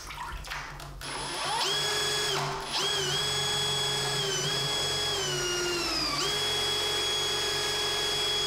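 Power drill spinning the shaft of a 3D-printed two-stage water jet, at an RPM the builder finds too low. After a few faint knocks, its motor whine starts about a second and a half in, dips and slides down in pitch for a few seconds as the speed varies, then jumps back up and holds steady.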